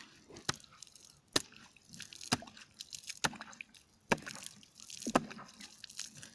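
Sharp chopping blows on wet ice, about one a second, with dripping, slushy water sounds between them.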